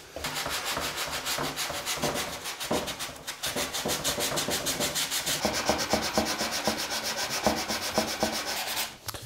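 Hand sanding with a sheet of sandpaper: quick back-and-forth rubbing strokes along the jigsaw-cut edge of a melamine window sill board, truing up the cut. There is a brief pause about three seconds in.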